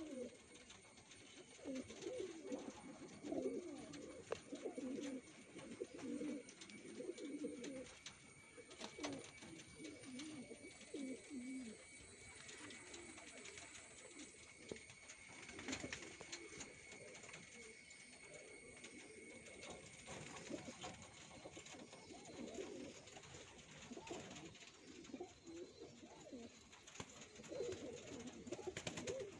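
Domestic fancy pigeons cooing, low warbling calls repeated and overlapping, thinning out in the middle and picking up again near the end. A faint steady high whine runs underneath.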